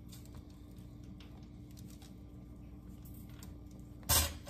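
Faint taps and scrapes of tongs and fingers as a tilapia fillet is dredged in a plate of flour, over a steady low hum. About four seconds in comes one brief, louder scuffing burst.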